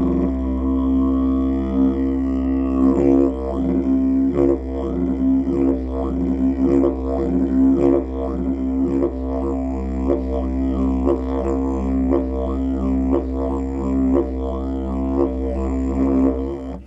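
White cherry wood didgeridoo played as a steady low drone, with rhythmic sweeping changes in its overtones as the mouth shapes the tone. The drone stops at the very end.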